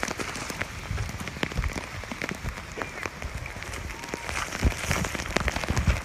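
Heavy rain pouring down, a steady hiss crowded with sharp drop ticks.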